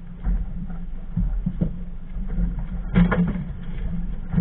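Boat's outboard motor running with a steady low hum, and a sharp knock on the boat about three seconds in.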